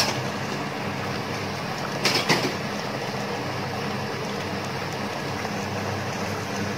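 Steady hum of an induction cooktop with chicken and spices sizzling in oil in an aluminium pressure cooker, and a brief scrape of a wooden spoon against the pot about two seconds in.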